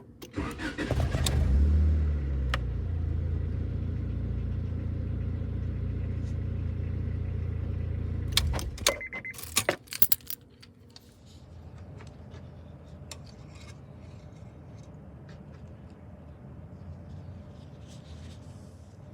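Keys jangle, then a Honda car engine starts and runs at a steady idle for about seven seconds before it is switched off with more key clicks and a brief high beep. A faint steady hum remains after that.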